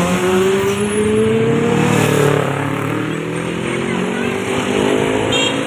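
Tour bus's diesel engine accelerating, its pitch rising over the first two seconds, then running steadier and slowly fading.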